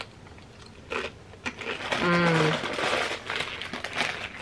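Close-up eating sounds: crunching and chewing of a fried wonton chip, with a short hummed "mm" of enjoyment about two seconds in.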